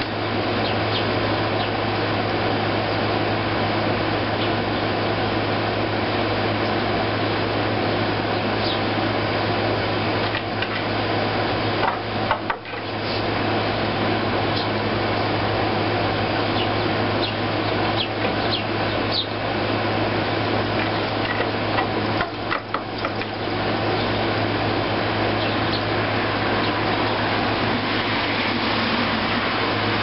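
Air conditioner running steadily, a loud even whooshing noise with a constant low hum, and a few faint sparrow chirps above it.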